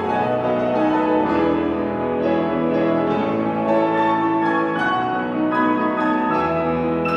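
Grand piano played solo: a continuous, flowing passage of chords over held bass notes.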